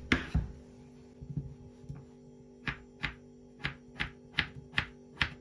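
Kitchen knife slicing a raw potato into rounds, the blade knocking on a wooden cutting board: one sharp knock at the start, then a quick regular run of about seven slicing strokes, roughly three a second.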